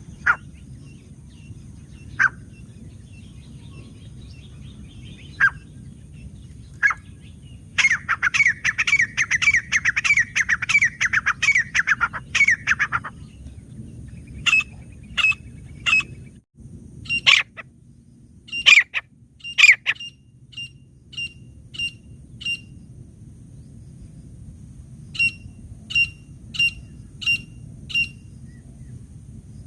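Grey francolin calling: a few single sharp notes, then a fast, dense run of calls for about five seconds, then a string of short repeated notes, over a steady low background noise.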